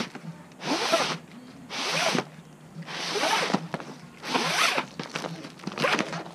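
The edge of an old Dometic RV awning fabric being pulled out through its slot in a series of about five hard tugs, each a rasping, zipper-like slide lasting about half a second.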